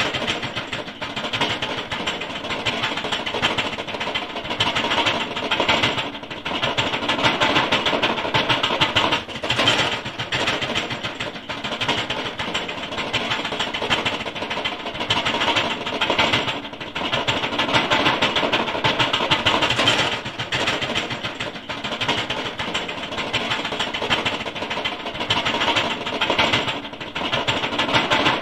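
Loose metal rattling and clattering rapidly without a break, as in a vehicle driving over a bumpy dirt road, swelling and easing every few seconds.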